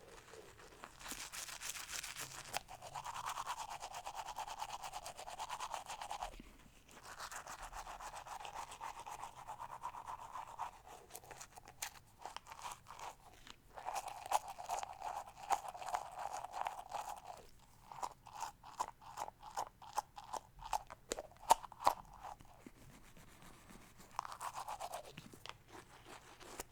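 Teeth being brushed with a toothbrush: scratchy scrubbing in spells of a few seconds with short pauses between. Past the middle it turns into separate quick strokes, about three a second, then a short last spell of brushing.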